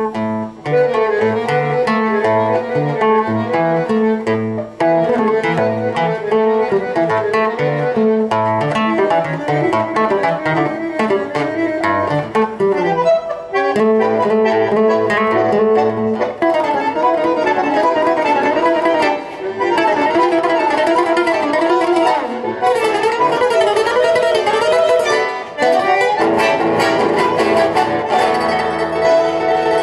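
Bandoneon and acoustic guitar playing a tango as a duo: the bandoneon's sustained reed chords over the plucked guitar, with a run of quick wavering notes past the middle.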